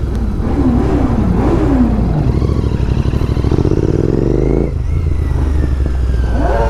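Motorcycle engine revving: two quick blips up and down, then a longer climb that drops off, and another rise near the end, over a steady idle.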